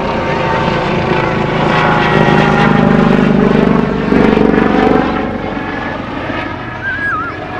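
A loud engine drone passing by, swelling to its peak about three to four seconds in and easing off afterwards. Near the end a barnacle goose gosling gives one short wavering peep.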